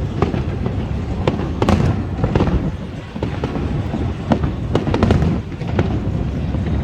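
Fireworks display: aerial shells bursting in quick succession, a dense run of sharp bangs and crackles with deep booms underneath.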